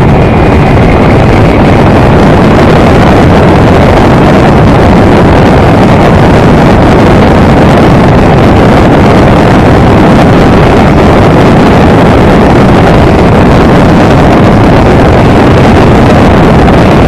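Fixed-wing drone's propeller and the rush of air over its onboard camera during a climb: a very loud, steady roar with no breaks.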